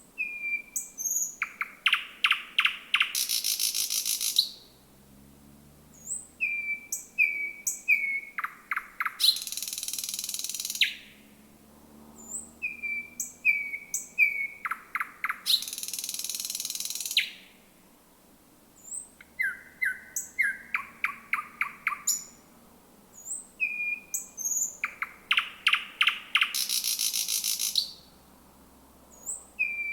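Thrush nightingale singing in repeated phrases with short pauses between them. Each phrase has a few clear whistled notes, then a fast series of loud clicking "trott" notes, and most phrases also carry a harsh buzzing rattle that lasts a second or two.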